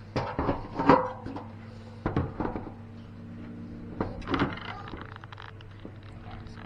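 Three short spells of knocking and rattling, about a second in, two seconds in and four seconds in, over a steady low hum.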